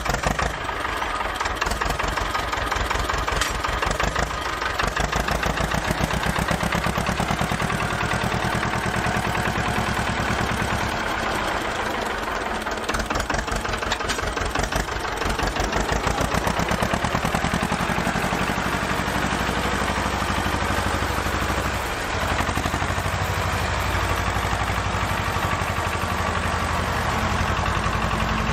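An engine running steadily with a fast, even chugging, its speed and loudness shifting slightly a few times.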